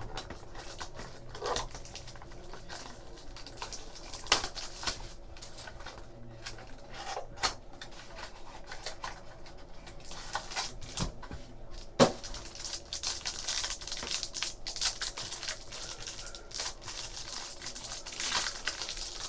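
Trading card packs and box wrapping being torn open and crinkled, with cardboard and cards being handled. Faint scattered rustles and small clicks, with a sharper click about twelve seconds in.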